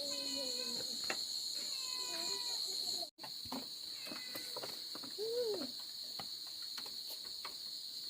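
Steady, high-pitched chirring of an insect chorus, with a few short faint calls over it. The sound cuts out for an instant about three seconds in.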